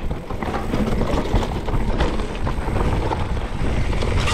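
Mountain bike riding fast down a dirt singletrack: wind rushing over the camera microphone, mixed with tyre noise on the dirt and a constant rattle of the bike's chain and frame.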